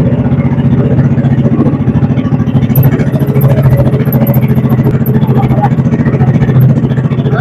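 Small fishing boat's engine running steadily under way, a fast even pulsing at constant speed.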